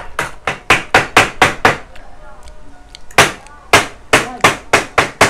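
Rapid hard knocks, about four a second, in two runs with a pause of about a second and a half between them: crab shells being pounded at the table to crack them open.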